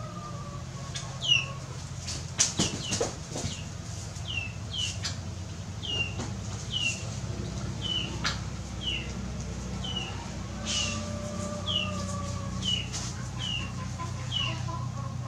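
A bird calling over and over with a short, high, falling chirp, roughly one or two a second. A few sharp clicks from a knife on the metal tray, the loudest about a second in, and a steady low hum underneath.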